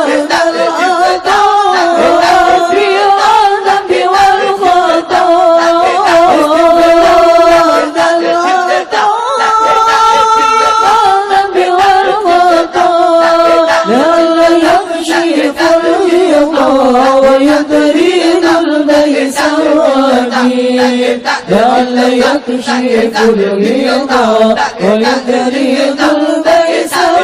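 Congregation chanting an Islamic dhikr melody in unison, with long held notes and slow melodic movement.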